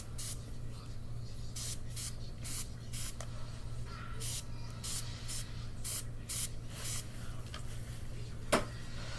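Spray bottle squirting water onto hair: about a dozen quick spritzes, each a short hiss, coming in uneven runs.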